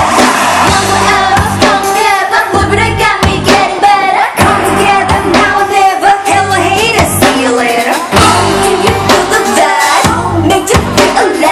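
Thai pop song: a female voice singing over a backing track with a steady beat, played loud through a stage sound system during a sound check.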